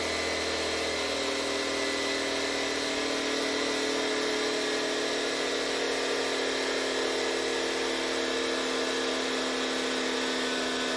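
Small electric air pump running steadily with an even motor whine, pumping up the car's rear air shocks.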